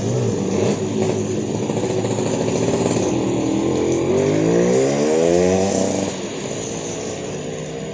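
A motor vehicle's engine passing close by, its pitch gliding up and then down, loudest about five seconds in, over a steady hiss of rain.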